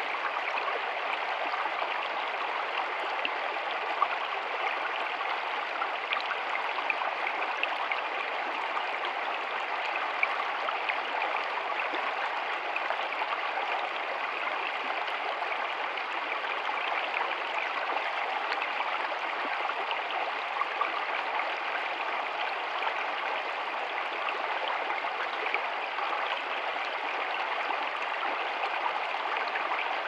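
Shallow stream running fast over rocks: a steady rush of water with scattered small splashes.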